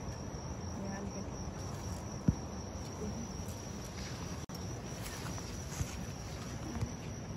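Insects droning in one steady high-pitched tone, with a single sharp thump a little over two seconds in.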